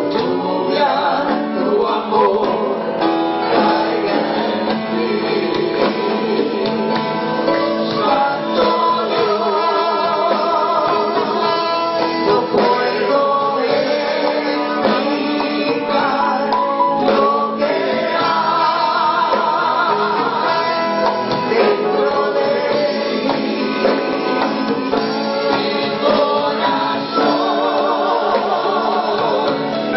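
Live gospel worship song: several voices singing together, accompanied by a plucked string instrument and percussion with a steady beat.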